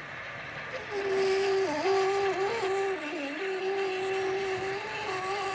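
Model locomotive horn from a sound-equipped model train sounding one long note from about a second in, its pitch dipping briefly a couple of times.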